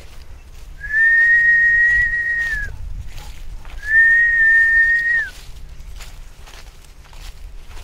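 Two long, steady whistles on one high note, each nearly two seconds, calling a dog back.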